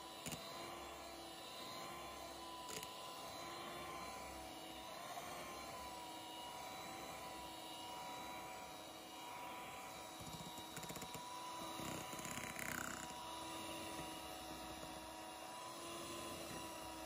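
Electric hand mixer running steadily, with a continuous motor whine as its beaters whip a creamy mixture in a bowl.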